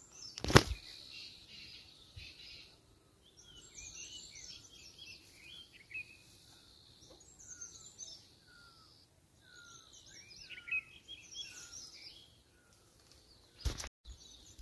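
Wild birds singing: many quick chirps and twitters, with one bird repeating a short falling note over and over through the middle. A sharp knock about half a second in and another near the end.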